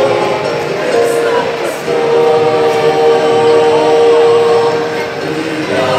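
Small mixed choir singing, holding one long chord for about three seconds in the middle.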